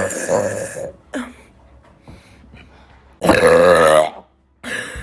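A woman burping loudly, twice: one long burp at the start and a second, equally long one about three seconds in, each lasting about a second.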